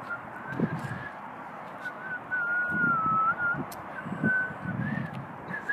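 A person whistling a slow, wandering tune in short phrases, with the longest held note a few seconds in. Soft low bumps come at intervals.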